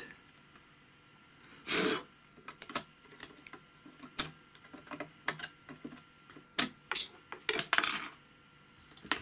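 Metal tweezers clicking and scraping against the feed dogs of an old Singer sewing machine, picking out dust and lint packed hard around them. Irregular sharp clicks, with a longer scrape about two seconds in and another near the end.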